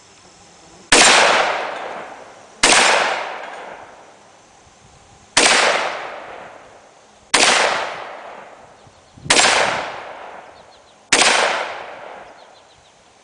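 Six shots from a TriStar Viper G2 semi-automatic 12-gauge shotgun firing Estate 2¾-inch #8 birdshot target loads, about two seconds apart, each report dying away over a second or so.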